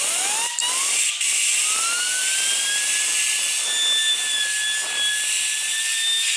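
Compressed-air blow gun hissing against the blades of a 3D-printed PLA turbine wheel spinning on a hand-held rod. The wheel's whine rises in pitch over about three seconds as it spins up, then holds steady. The air blast cuts off suddenly at the end.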